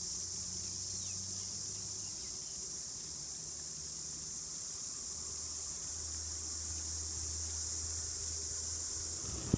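A dense chorus of cicadas singing, a steady high-pitched hiss that does not let up.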